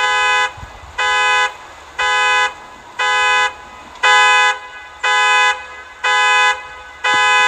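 Car horn honking in a steady rhythm, about one half-second blast every second, eight blasts in all: the pattern of a car alarm going off.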